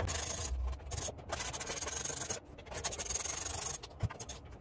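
Torx T10 screwdriver turned by hand, backing small screws out of the plastic back housing of a car instrument cluster: a rasping, grinding noise in two stretches with a short break in between.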